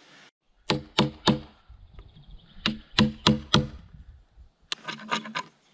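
Sharp knocks of a hand tool striking a log, three in quick succession and then four more after a short pause, with a quicker, lighter run of taps near the end.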